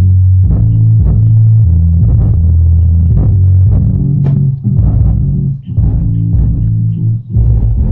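Bass-heavy music with a plucked bass line and guitar. The low notes change every half second or so, and the music briefly drops out twice near the end.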